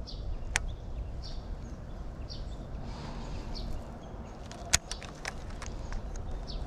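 Wind rumbling on the microphone over a short high call that repeats about once a second. A few sharp clicks come from handling the baitcasting rod and reel; the loudest lands about three quarters through.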